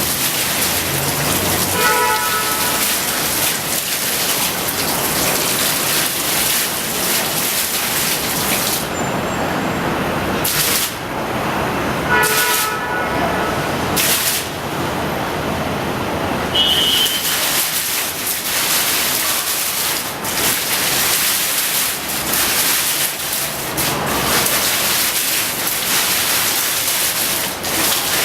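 Falling water of a waterfall display, a curtain of water splashing down into its basin with a steady, loud hiss. About nine seconds in, the hiss thins for a few seconds, broken by short surges of spray, then fills out again.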